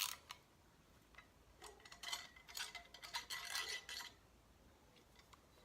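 Metal spanner clinking and scraping against the nut at the bottom of a threaded rod as it is loosened: a sharp click at the start, then a run of short metallic clicks and scrapes about one and a half to four seconds in.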